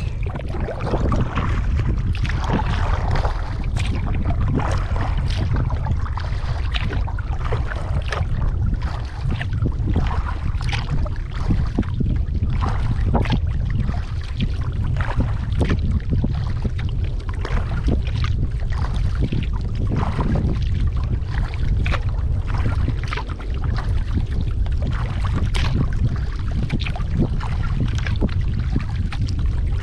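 Wind buffeting the microphone in a steady low rumble, with irregular small splashes and slaps of water against a kayak.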